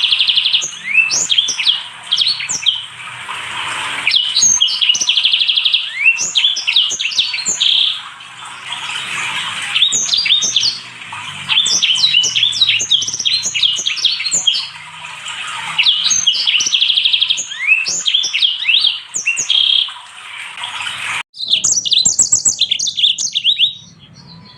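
Small finches singing a continuous, loud song of fast chirps, sweeping whistles and buzzy trills. About 21 seconds in it cuts abruptly to a different recording of quicker, higher notes, which falls away near the end.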